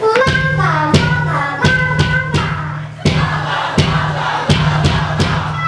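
Live rock band playing: a loud, sustained low chord with drum hits on a steady beat, about three every two seconds, kicking in just after the start.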